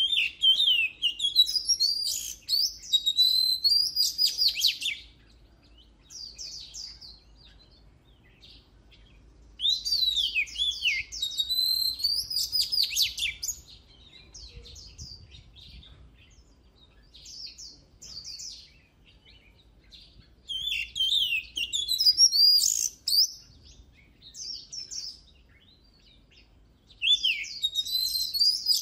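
Oriental magpie-robin singing: loud, varied phrases of clear whistles, slurred notes and rapid trills, delivered in bursts of a few seconds at a time with short single notes in the gaps between.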